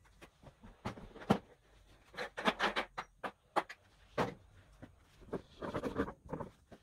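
Hard plastic clicking and clattering as plastic ground stakes are pulled from the clips on the ribbed plastic underside of a faux-stone stepping stone and the tile is shifted. The clicks are irregular, busiest about two and a half seconds in and again near six seconds.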